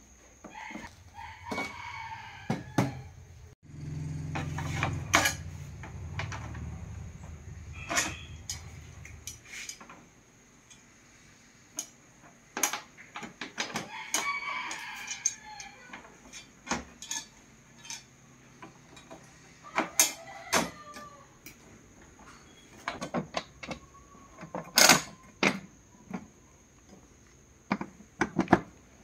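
A rooster crows twice, about a second in and again about fourteen seconds in, among scattered sharp knocks and clicks from the plastic TV back panel and metal stand brackets being handled. There is a low hum from about four to nine seconds in.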